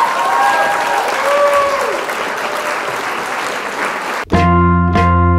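Crowd clapping and cheering, cut off abruptly about four seconds in by instrumental music with a run of struck, ringing notes.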